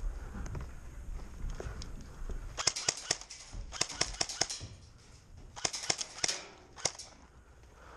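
Airsoft guns firing in rapid bursts of sharp clicks, four bursts starting about two and a half seconds in, the last one short.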